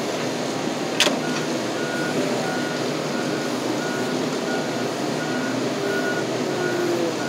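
Loader tractor's engine running steadily while its reversing alarm beeps, about one and a half beeps a second, starting about two seconds in. A single sharp knock about a second in.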